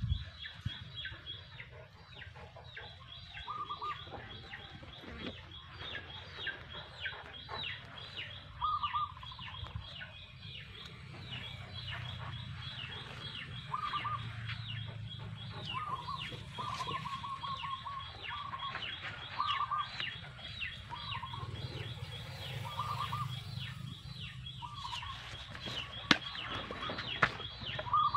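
Chickens clucking in short, repeated bursts every few seconds, over a steady, high, fast ticking call and a low hum.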